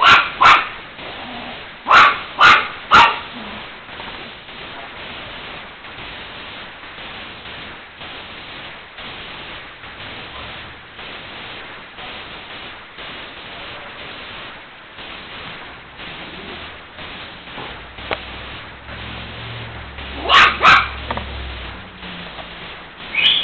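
A small dog barking at a cat: a quick run of about five short, sharp barks in the first three seconds, a long lull, then a cluster of three barks near the end and one more just before it closes.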